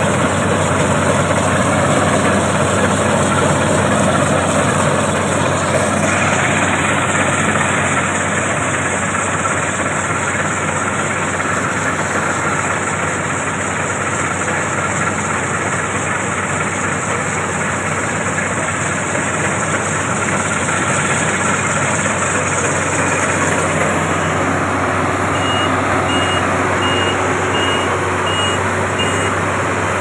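Marksan MS-1200 crawler combine harvester running steadily while cutting and threshing wheat: a loud, even din of engine and machinery with a steady low hum. A run of short, high beeps sounds near the end.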